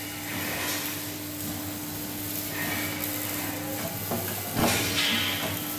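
Steady hiss and a constant low hum from a wrought iron clamping machine running while bars are positioned under its die. A louder burst of noise comes about four and a half seconds in.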